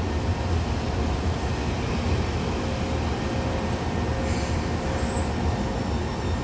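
Taipei Metro train standing at the platform, its equipment giving a steady low hum with a few faint steady tones over a noisy background, with a brief hiss about four seconds in.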